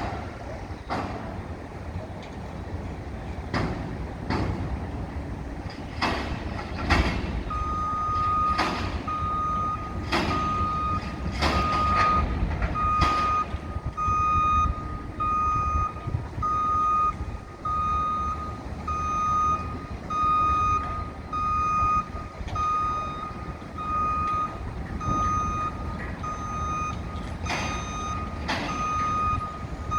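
Construction vehicle's reversing alarm starting about a quarter of the way in and beeping steadily about once a second, over a low engine rumble. Sharp bangs, several in the first half and a couple near the end, sound over it.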